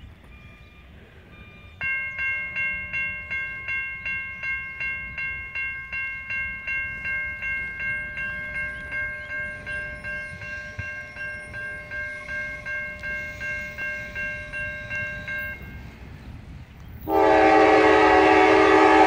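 A railroad crossing's warning bell dings about twice a second from about two seconds in and stops shortly before the train arrives, as US crossing bells do once the gates are down. About a second later the approaching freight train's diesel locomotive sounds one loud, long blast on its horn, the loudest sound here.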